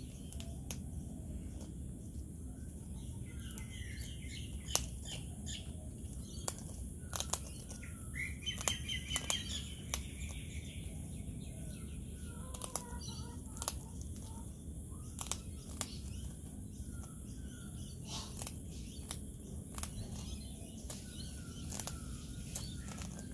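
Sulphur-crested cockatoo biting and crunching a cracker biscuit held in its foot: sharp, irregular cracks and crunches, with birds chirping faintly in the background.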